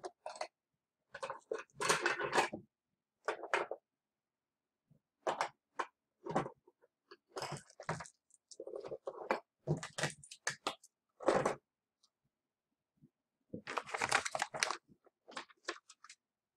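Galileoscope kit parts, small plastic bags and a cardboard box being handled as the kit is packed away: irregular crinkling rustles and light plastic clicks and knocks in short bursts with brief pauses between.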